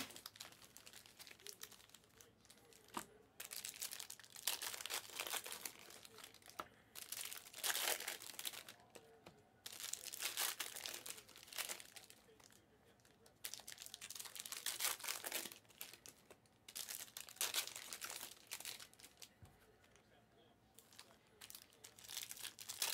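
Plastic wrapping on Panini Prizm Fast Break trading card boxes and packs being torn open and crinkled by hand, in repeated bursts of rustling a second or two long with short pauses between them.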